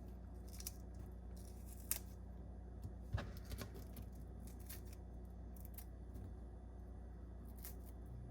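Red onion pieces being broken apart by hand: scattered faint crisp snaps and clicks over a steady low hum.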